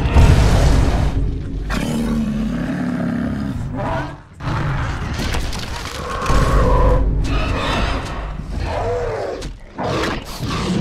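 Roar and growl sound effects for a cartoon T. rex and Spinosaurus fighting, several separate calls one after another, with deep low booms in places.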